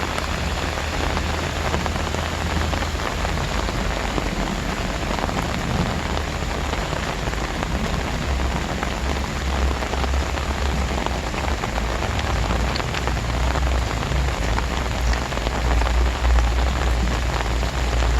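Heavy rain pouring down in a dense, steady hiss, with a low rumble underneath that grows stronger in the second half.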